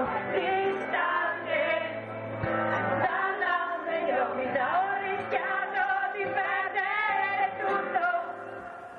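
A woman singing a song in Italian, accompanied by her own guitar. The sound thins out and drops away briefly near the end.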